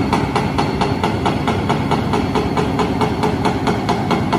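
Excavator-mounted hammer (rock breaker) pounding compacted glacial till in a rapid, even rhythm of about six blows a second, over the excavator's engine running.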